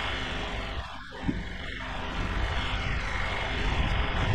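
Kioti DK4510 tractor's diesel engine idling steadily while it warms up, with a single knock about a second in.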